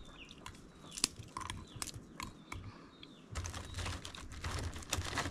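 Dry cream crackers snapped into pieces by hand, giving a string of sharp, crisp snaps. A denser run of crackling starts about three and a half seconds in.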